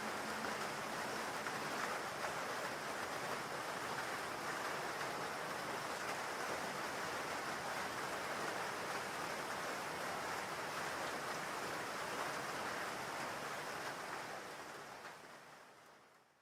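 Steady falling rain, an even hiss, fading out near the end.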